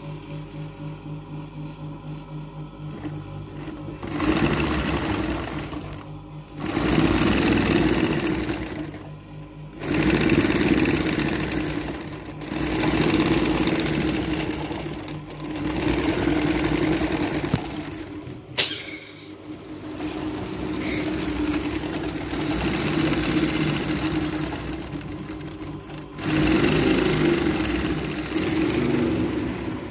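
Industrial carpet-binding sewing machine stitching binding tape onto the edge of a sisal rug. It runs quietly for the first few seconds, then goes in loud stretches of two to three seconds with brief pauses between them.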